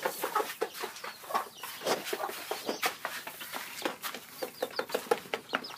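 Chickens clucking: many short calls scattered throughout, with small clicks and scratches among them.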